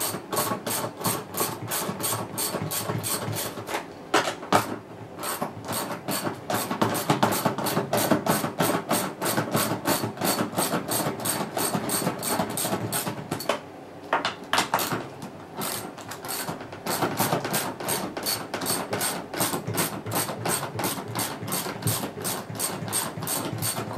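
Rapid, even clicking of a socket ratchet undoing the bolts that join the two halves of a washing machine's plastic outer tub, breaking off briefly a few times as the tool is moved to the next bolt.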